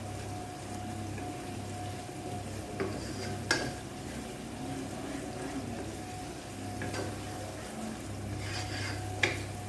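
Chicken sausage frying in a pan with a steady sizzle, while a spatula knocks and scrapes against the pan a few times, the sharpest knock about three and a half seconds in.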